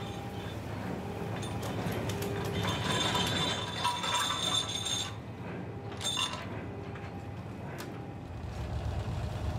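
Trawler deck machinery and gear working: metallic rattling and clanking over a steady low rumble of the ship. There is a metallic ringing about three to five seconds in and a short clatter around six seconds.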